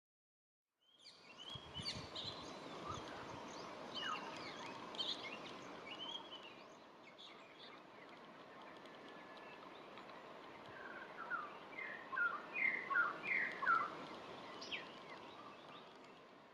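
Wild birds calling over a steady outdoor background, with scattered chirps and whistles, then a run of about six louder, short falling whistled notes near the end.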